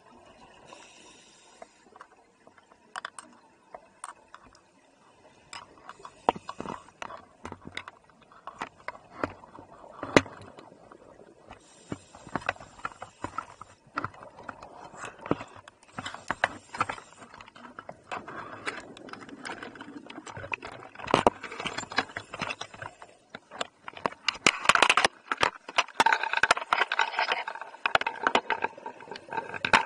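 Underwater sound of scuba divers' exhaled bubbles: irregular clicks and knocks with bubbling between them, denser and louder toward the end as a diver breathes out just above the camera.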